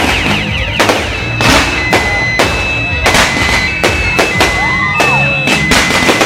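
Fireworks display: about a dozen sharp bangs over a few seconds, mixed with whistling shells gliding up and down in pitch and steady high whistles that start and stop.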